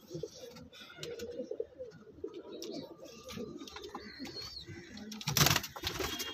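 Domestic pigeons cooing softly and continuously. About five and a half seconds in, a brief loud scuffle.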